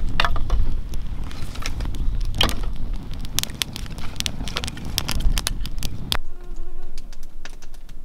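Small campfire of dry sticks crackling and popping, with sticks clattering as they are laid on, over a low rumble. About six seconds in the rumble and crackling stop suddenly, leaving a faint buzz.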